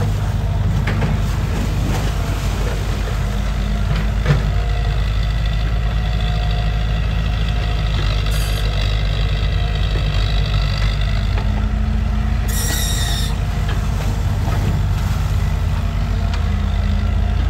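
Excavator diesel engine running steadily as the machine digs and swings mud, with a high whine through the middle. A single knock comes about four seconds in, and a short high hiss about twelve and a half seconds in.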